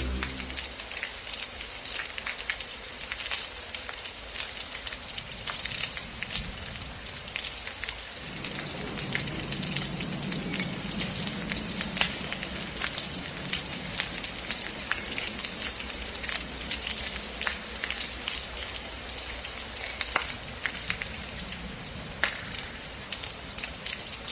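Steady rain, with a dense patter of crackling drops and ticks. A faint low hum sits under it for a few seconds in the middle.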